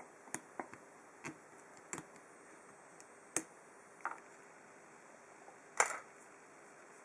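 Scattered small clicks and taps, about eight of them at uneven intervals, the loudest near the end: a brass padlock and small tools being handled as the lock is taken apart.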